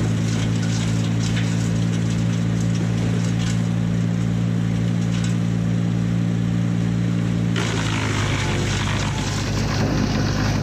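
An engine running at a steady speed with an even drone. About seven and a half seconds in, its tone changes and a rougher hiss rises.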